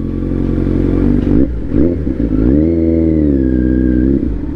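Kawasaki Z900's inline-four motorcycle engine idling, then revved up about halfway through, held for a second or so and let fall back toward idle.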